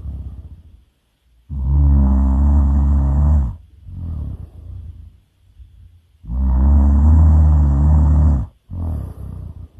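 A person snoring really loud: two long snores about five seconds apart, each followed by a quieter, shorter breath.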